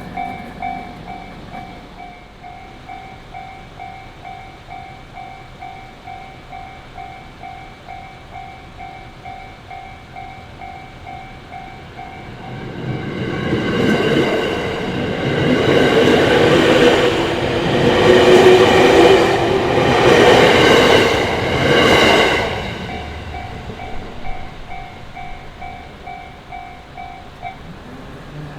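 Japanese level-crossing warning bell ringing in a rapid, even repeating rhythm. About halfway through, an electric train passes through the crossing, and its loud rumble drowns out the bell for several seconds. The bell is heard again once the train has gone by, then stops near the end as the crossing clears.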